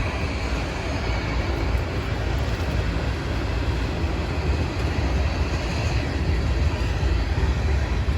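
Norfolk Southern manifest freight train rolling past, a steady deep rumbling noise of the train on the rails.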